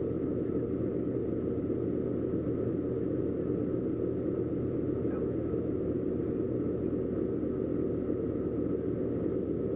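Doosan DX140 excavator's diesel engine running steadily, heard from the cab, with the arm and bucket held still.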